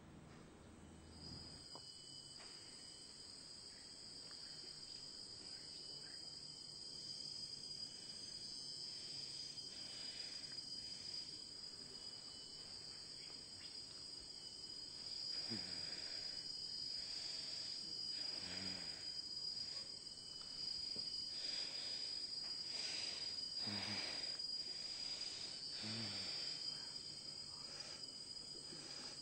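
Steady high-pitched insect chirring. From about halfway through, several louder rushing sounds come every few seconds.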